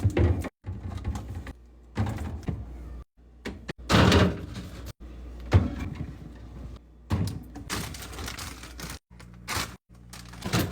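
Refrigerator being emptied and cleaned: shelves and crisper drawers sliding out and containers clunking and rustling in short, abruptly cut bursts, with a faint low hum in some stretches.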